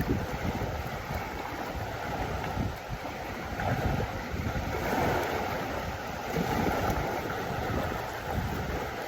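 Wind buffeting the microphone in uneven gusts, over the wash of lake water lapping.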